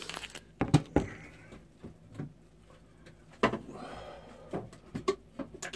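Sharp knocks and clatters of containers and household items being handled: two loud knocks about a second in, another midway, then a run of lighter clicks near the end.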